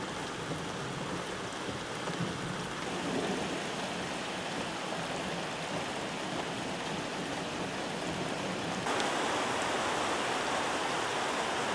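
Steady hiss of heavy rain and rushing floodwater, becoming louder and brighter about nine seconds in.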